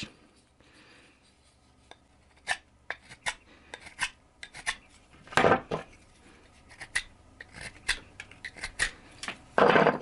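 A pocket knife's thin, rehardened carbon-fibre-handled blade shaving a block of Katalox, a very hard tropical wood: a run of short, sharp scraping cuts starting a couple of seconds in, with two longer, louder strokes about halfway and at the end.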